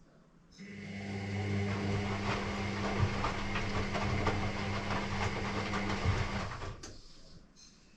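Electrolux EW6S404WU washing machine's drum turning for about six seconds during the wash, with a steady motor hum and laundry tumbling and clicking inside the drum. It starts up about half a second in and winds down shortly before the end.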